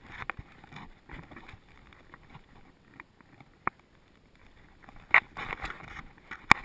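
Rustling and sharp clicks from a camera worn by a dog, rubbing against its fur as it moves, with short bursts of sniffing as it noses along the ground. The loudest clicks come about five seconds in and near the end.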